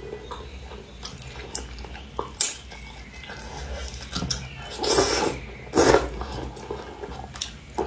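Close-miked eating sounds: wet chewing and sucking on pieces of turtle, with scattered light clicks and two louder slurps about five and six seconds in.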